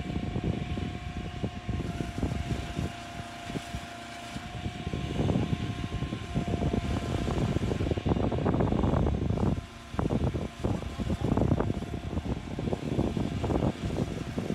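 An engine running steadily with an uneven rumble; a faint steady whine over it stops about halfway through.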